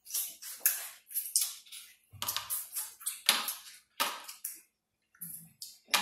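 Close-up eating sounds from crab legs eaten with the fingers: a quick run of wet smacking, sucking and squishing noises, with a short pause a little after the middle.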